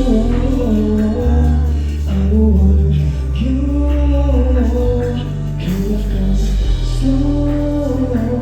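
Live concert performance of a pop song: a sung melody over loud, sustained bass.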